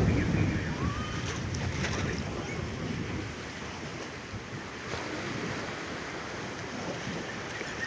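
Rough sea waves washing against a ferry, with wind buffeting the microphone. It is loudest right at the start, then settles into a steady rush.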